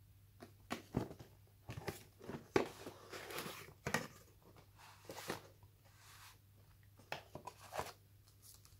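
Cardboard phone box being opened by hand: a string of scrapes, taps and rustles as the lid comes open, then paper leaflets rustling as they are lifted out near the end.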